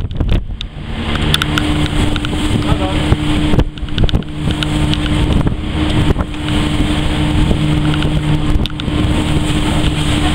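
Car ferry's engines droning with a steady low hum that settles in about a second in, under heavy wind buffeting on the microphone.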